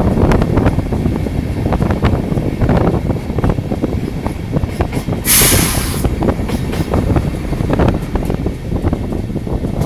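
Passenger train wheels rumbling and clattering over rail joints and points, heard from the open window of the last coach, with wind on the microphone. A short hiss cuts in about five seconds in.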